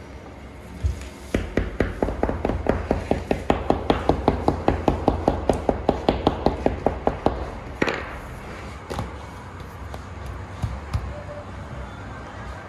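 A chekich, the metal-pinned Uzbek bread stamp, pricking a pattern into a round of flatbread dough on a table: quick, even taps of about five a second for several seconds. A single louder knock follows a moment later, then a few quieter knocks.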